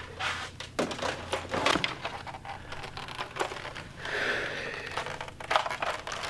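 Handling noise from plastic Nerf blasters: a scatter of short plastic clicks and knocks with some rustling as a blaster is lifted out and turned over in gloved hands.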